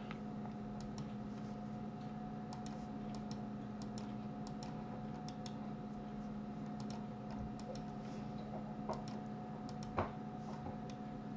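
Irregular light clicks of a computer mouse, a sharper click about ten seconds in, over a steady faint electrical hum.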